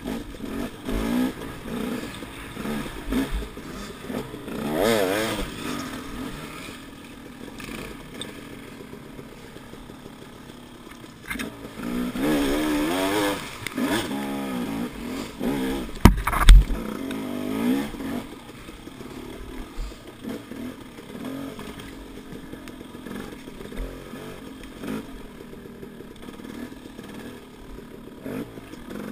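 Dirt bike engine revving up and down in repeated bursts while riding a rough woods trail, with rattling from the bike. A single sharp thump about halfway through is the loudest sound.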